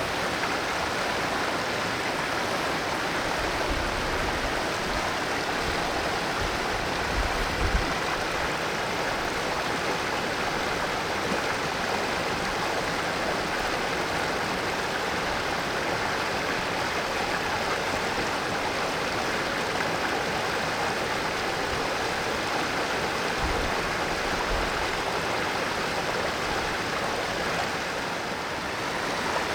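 Valley stream flowing briskly, a steady rushing and babbling of water, with a couple of brief low bumps about seven seconds in and again later on.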